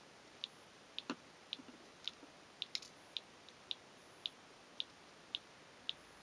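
Motorcycle disc lock making its abnormal noise: short, sharp, high ticks at an even pace of a little under two a second, like a clock, with one fuller click about a second in.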